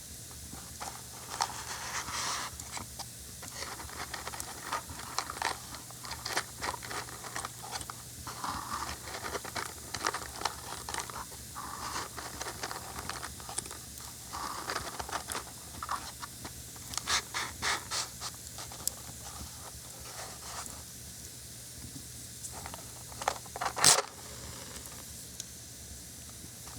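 Small fire crackling, with irregular sharp pops and ticks over a soft hiss. One louder sharp crack stands out near the end.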